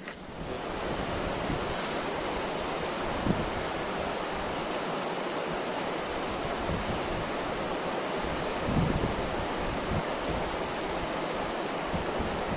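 A steady rushing noise that builds up within the first second and then holds level, with brief low thumps about three and nine seconds in.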